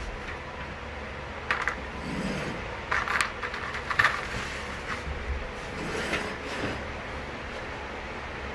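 Loose steel hinges clinking and scraping as they are handled and set down on a wooden bed platform, with a few sharp clinks about one and a half, three and four seconds in. A steady low hum runs underneath.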